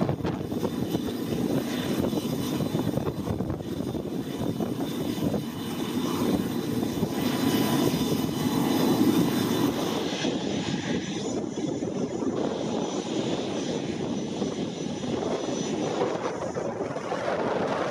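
The three Pratt & Whitney Canada PW307A turbofans of a Dassault Falcon 7X business jet running as it taxis: a steady jet rush with a faint high whine over it.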